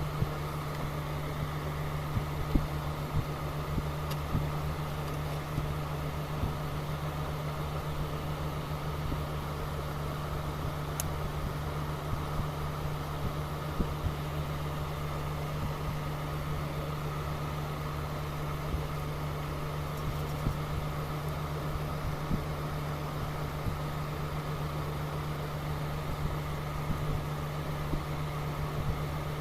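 Steady low electrical-sounding hum with faint scattered clicks; it holds the same level and pitch throughout.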